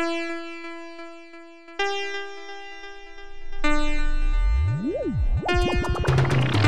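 Electronic synthesizer music: three long held notes, each starting about two seconds after the last, then a low sweep that rises and falls, and a quickening stutter near the end that builds towards a dance beat.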